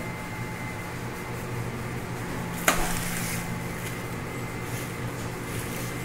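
Steady low room hum with one sharp click a little before the middle, trailing off in a brief rustle, like a hard object being handled or set down.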